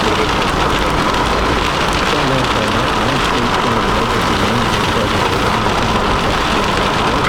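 Steady rain hitting the car: an even, unbroken hiss of drops with no distinct hits standing out.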